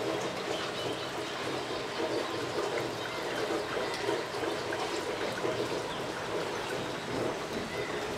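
Steady wash of running, trickling water, with many small ticks scattered through it.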